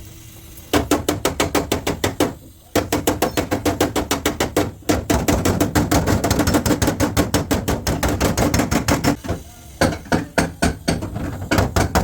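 Hammer striking a steel car body panel in quick, regular blows, about six a second, with a short break near the start and slower, scattered strikes near the end; the metal rings faintly under the blows.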